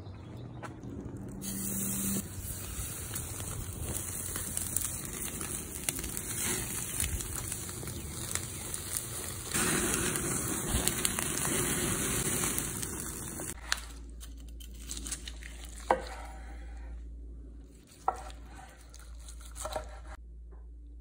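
Tomahawk ribeye steaks sizzling on a grill grate over a charcoal fire, a dense steady hiss that stops suddenly about two-thirds of the way through. After that, a knife slicing the cooked steak on a wooden cutting board, with a couple of sharp knocks.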